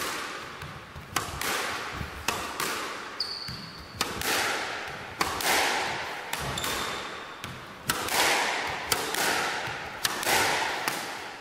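Squash ball being hit in a warm-up: sharp smacks of ball on racket and walls about once a second, each ringing on in the echoing court. A couple of brief high squeaks, from shoes on the wooden floor.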